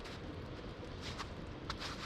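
Footsteps crunching in fresh snow, two steps about a second in and near the end, over a steady low rumble.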